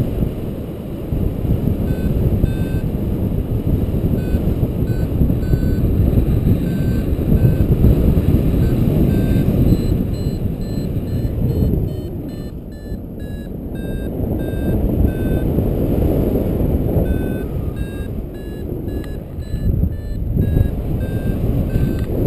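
A paraglider's variometer beeping in short, high tones about twice a second, the beeps coming a little quicker and higher about two-thirds of the way through, which is the instrument's climb signal in rising air. Heavy wind rush on the microphone is louder than the beeps.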